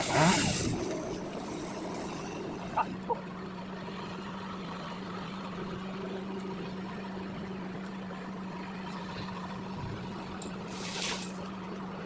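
An engine idling steadily at low revs. A brief hiss comes right at the start and again near the end, and two sharp clicks come about three seconds in.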